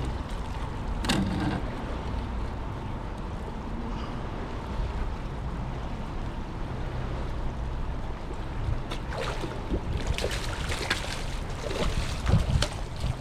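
Wind and lapping water around a fishing kayak as a steady low rumble, with a single sharp knock about a second in and a run of irregular splashes and knocks over the last few seconds.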